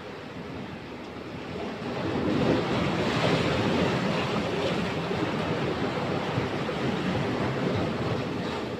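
Sea waves surging in and breaking over a rocky shore, a steady rushing wash that swells louder about two seconds in.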